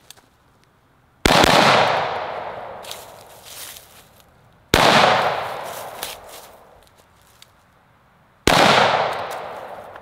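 Three single shots from a 16-inch AR-15 rifle (Geissele Super Duty) firing 5.56 XM193, about three and a half seconds apart. Each crack is followed by an echo that fades over a couple of seconds.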